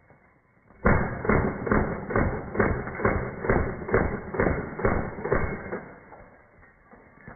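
Gas blowback airsoft pistol firing a rapid string of about eleven shots, a little over two a second, at light bulbs that shatter. The shots start just under a second in and stop about five and a half seconds in.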